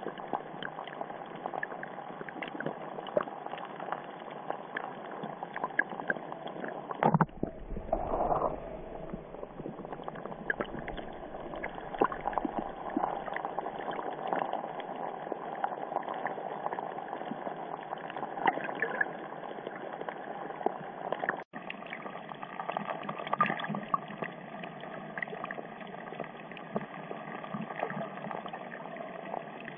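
Underwater ambient sound on a reef: a steady wash of water noise dotted with many faint crackling clicks. A brief bump and swish about seven seconds in.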